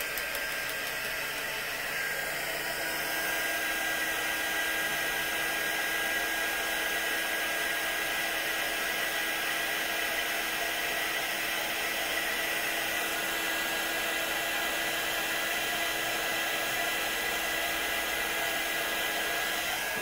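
Electric heat embossing tool blowing hot air steadily to melt embossing powder on stamped cardstock, a constant rushing noise with a steady motor whine.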